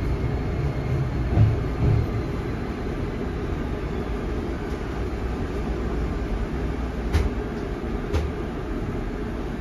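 Running noise of a Toei Oedo Line 12-600 series linear-motor subway car, heard from inside the cabin as the train slows into a station. A steady rumble of wheels on rail, with two low thumps about one and a half to two seconds in and two sharp knocks near the end.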